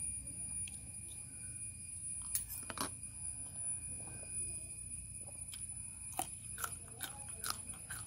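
Someone eating with a metal fork and spoon: short clicks and scrapes of cutlery on a plastic tray, several in quick succession near the end, with chewing. A steady high-pitched tone sounds behind it.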